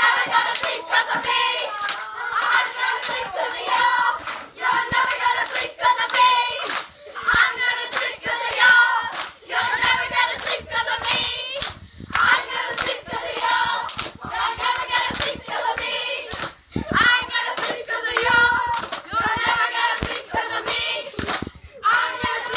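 A group of children clapping in a steady rhythm and singing together.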